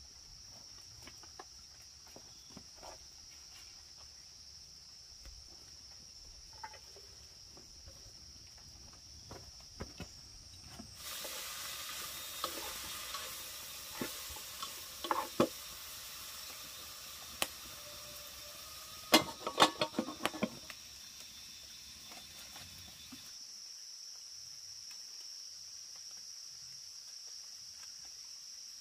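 Insects chirring steadily in one high tone. About eleven seconds in, a steady hiss covers them for about twelve seconds, with a few sharp clicks and clatters, the loudest cluster near its end.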